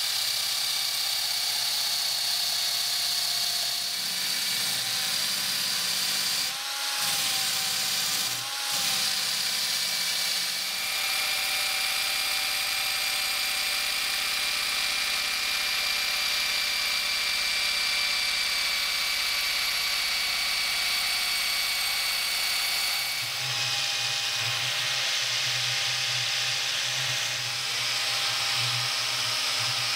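Power-tool motor whining steadily as a spinning wheel grinds rust off a steel bayonet blade, briefly easing off twice about a third of the way in. About three quarters through the sound changes to a cordless drill spinning a twisted-wire brush against the rusty bayonet, with a lower pulsing hum.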